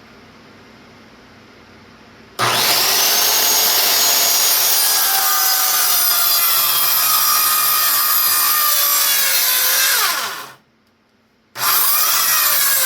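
Electric saw spinning up with a rising whine and cutting through a 2x4, running loud for about eight seconds before winding down with a falling pitch. After about a second of silence it starts up again near the end. The blade is nearly worn out.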